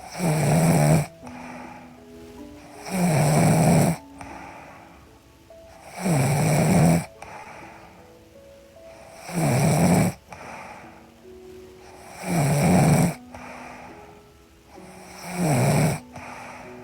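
A sleeping woman snoring, one snore about every three seconds, six in all, each about a second long. Soft background music with held notes plays under the snores.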